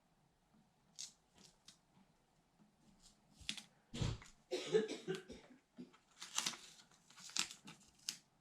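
Hands handling and positioning a peel-and-stick screen gasket on a resin 3D printer: a series of short rustles and crinkles, with a soft bump about four seconds in.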